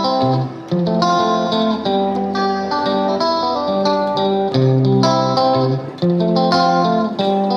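Background music: a guitar playing a plucked melody over a steady accompaniment.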